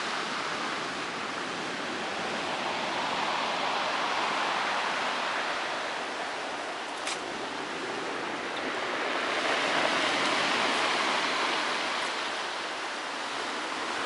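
Sea surf breaking and washing up a pebble beach, the rush swelling and easing twice, with a brief click about seven seconds in.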